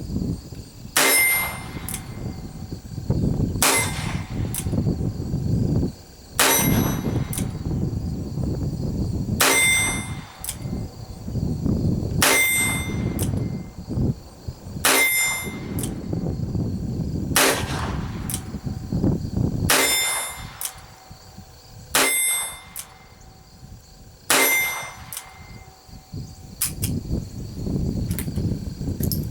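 Ruger GP100 .22 LR revolver firing ten single shots of bulk .22 LR ammunition, evenly paced about two and a half seconds apart. Each report is sharp and short, and a brief metallic ring follows it.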